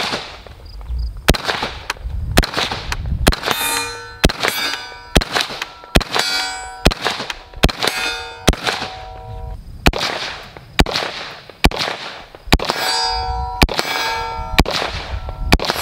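H&K SL8-1 semi-automatic rifle fired in steady strings of about two shots a second, each shot followed by the bright ring of a steel target being hit.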